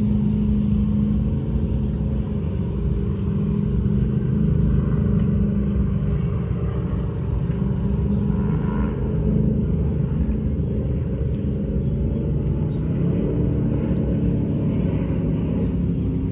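Racing powerboat engines running at high speed on the water: a deep, steady rumble.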